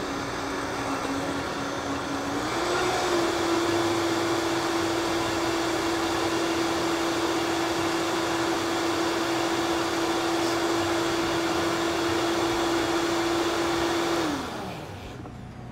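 Countertop blender motor running while it purees a turnip-green chimichurri, a steady whir with a hum that steps up in pitch about two and a half seconds in. Near the end the motor winds down and stops.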